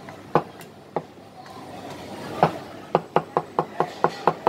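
Chinese cleaver chopping cooked beef on a white plastic cutting board. There are three separate chops, then a quick run of about seven chops in under two seconds near the end.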